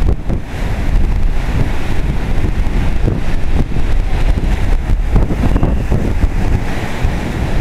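Strong storm wind buffeting the microphone, with the hiss of surf breaking on the beach swelling and fading beneath it.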